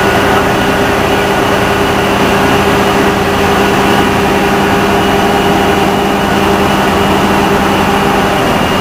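Diesel power pack of a self-propelled modular transporter running at a steady, loud drone, its pitch shifting slightly near the end.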